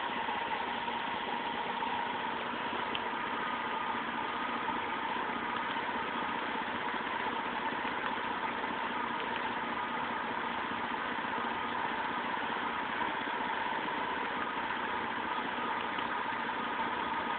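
Vauxhall Senator's C30SE 3.0-litre 24-valve straight-six idling steadily, warm after about 15 minutes of running.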